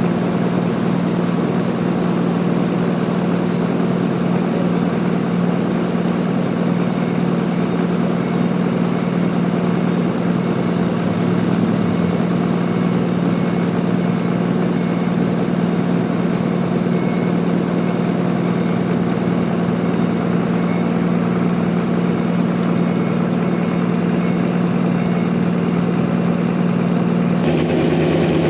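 Sawmill machinery running steadily, a loud even engine-like hum with no load changes. The sound changes abruptly about a second before the end.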